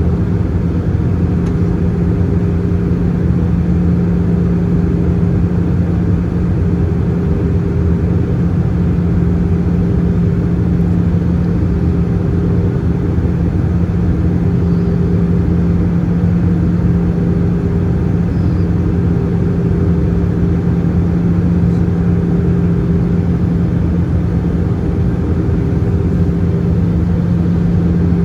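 Steady in-flight cabin noise of an Airbus A320-214: the drone of its CFM56 engines over the rush of air along the fuselage, with a constant low hum and a fainter higher tone that comes and goes.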